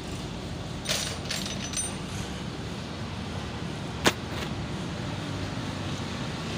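Metal clinks, a few with a short ring, about one to two seconds in, then a single sharp metallic knock about four seconds in, as the steel planetary ring gear from a tractor's front hub is freed and lifted away; a steady low background rumble runs underneath.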